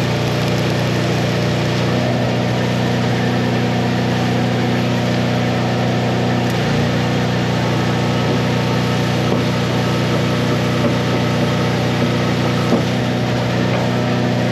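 Miller engine-driven welder running steadily under welding load, with the continuous hissing crackle of a stick-welding arc burning a 3/32 rod.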